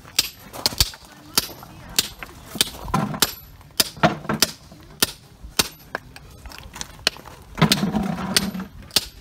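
Steel hammer striking a hand-held chisel set into a dolomite boulder: a steady run of sharp metallic strikes, about one and a half to two a second, as the chisel is driven into the rock.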